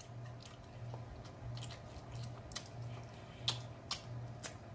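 Scattered wet smacks and clicks of lips and fingers as hot-wing sauce and dressing are licked off, the loudest about three and a half seconds in, over a faint low hum.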